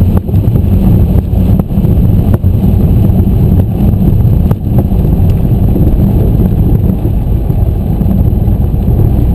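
The Piper Archer III's four-cylinder Lycoming engine runs steadily as the aircraft rolls over a grass runway, heard inside the cockpit as a loud, deep rumble. A few short knocks cut through it.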